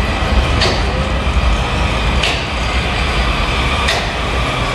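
Washington Metro 7000-series subway train pulling into the station and running past on the platform track, a steady rumble of wheels on rail with three brief high hissing rushes about a second and a half apart.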